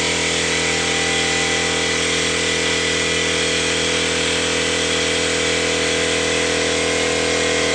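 Pneumatic grinder running at a steady speed: a constant whine of several tones over the even hiss of air.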